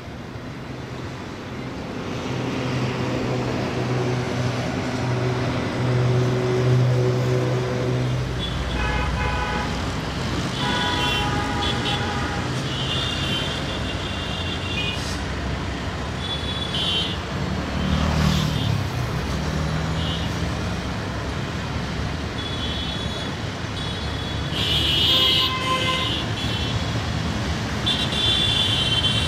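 Diesel-electric locomotive engine droning steadily as an EMD GT38AC runs light at slow speed, over a background of traffic noise. From about eight seconds in, short high horn toots sound again and again.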